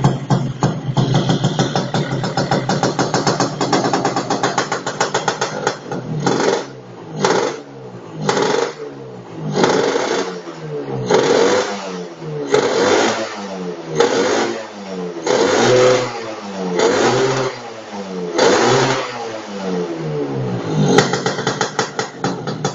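Suzuki Satria LSCM motorcycle engine running through an AHM type P aftermarket exhaust: it idles steadily, then is blipped about a dozen times in quick short revs, each dropping straight back, before settling to idle again near the end.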